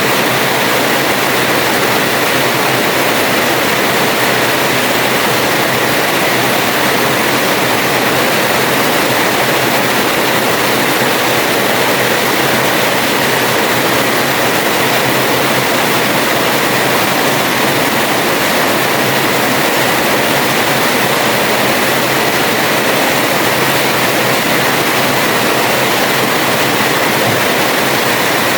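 Heavy rain falling steadily on a house terrace: a loud, even downpour with no let-up.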